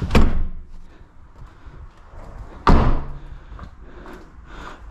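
Rear seatbacks of a Honda Civic Type R hatchback being swung up and latched into place: two solid clunks, one right at the start and one about two and a half seconds later.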